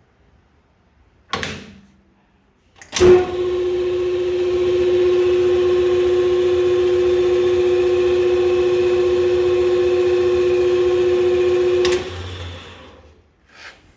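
Clausing Colchester 13-inch gearhead lathe headstock starting with a sharp click about three seconds in, spinning up and running with a steady gear whine. It shuts off about twelve seconds in and winds down over about a second. A single clunk, typical of a speed lever being shifted, comes about a second in.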